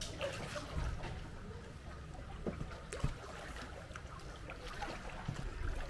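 Kayak paddling on calm water: paddle blades dipping and water dripping and splashing, with a few sharp clicks over a steady low rumble.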